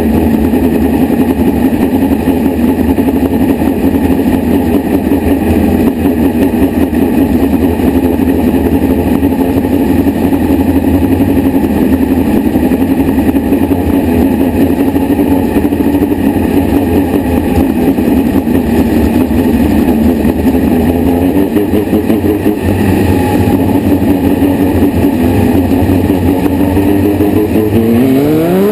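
Midget race car's engine heard on board, running steadily at a fairly low, even speed while the car trails the pace truck under caution. The pitch barely changes until small rises in the last few seconds.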